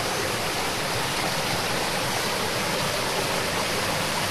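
Flooded stream rushing steadily, swollen with hurricane floodwater.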